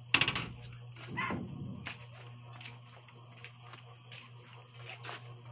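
Night insects, crickets, trilling steadily on one high continuous tone. Just after the start comes a sudden loud clatter, and about a second later a shorter rasping sound.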